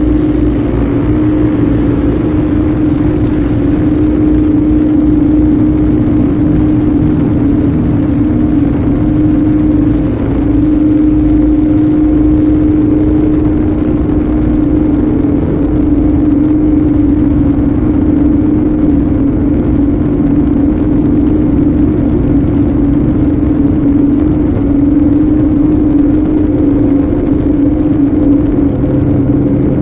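Live electronic noise music: a loud, steady drone, one held low-mid tone over a dense rumble and hiss, with a faint high whine coming in about halfway through.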